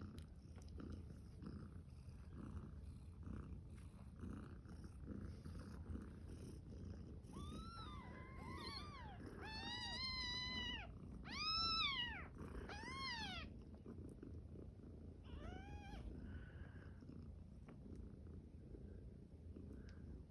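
Steady low purring, with a run of about six high, arching mews from a newborn kitten in the middle, the loudest near the middle of the run.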